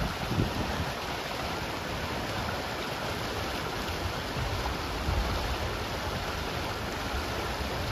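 Swollen creek running high and swift, rushing and churning over a small drop into whitewater: a steady, even wash of water noise.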